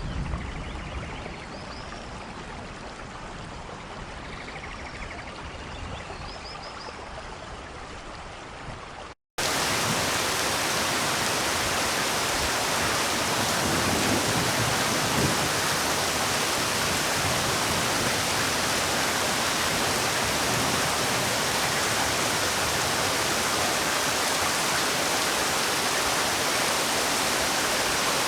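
Rain falling, lighter at first with a few faint high chirps over it. After a brief cut about nine seconds in, a loud, even hiss of heavy downpour.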